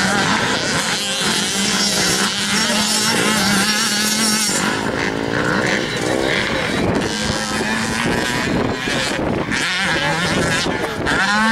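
Motocross dirt bike engines revving hard, their pitch rising and falling over and over with the throttle and gear changes.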